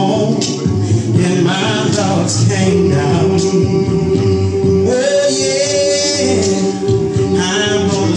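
A cappella men's gospel chorus singing in harmony, with no instruments. From about three seconds in, a long note is held under the other voices.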